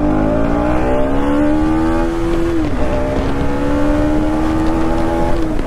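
KTM Duke's single-cylinder engine accelerating hard under way: the revs climb, drop sharply at an upshift about two and a half seconds in, climb again and drop at a second upshift near the end. Wind noise over the microphone runs underneath.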